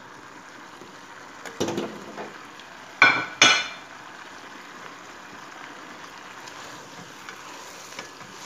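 Fried chicken tipped from a plate into a pan of simmering sauce, the plate and spatula knocking against the pan: a few light knocks about a second and a half in, then two loud, ringing clanks about three seconds in. The sauce simmers steadily underneath.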